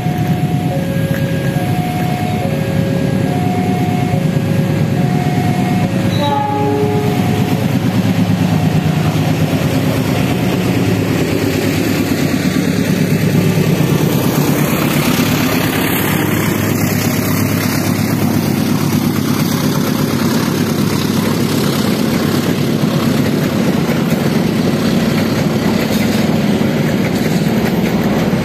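Trains passing close at a level crossing: a diesel-hauled freight train, then a passenger train, with the steady rumble of wheels on rail throughout. For the first six seconds or so the crossing's warning bell rings in two alternating tones, and a short horn sounds about six seconds in.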